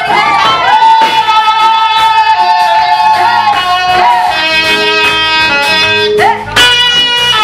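Hymn music with guitar: a melody line holds long notes and slides up into new ones, over a steady accompaniment.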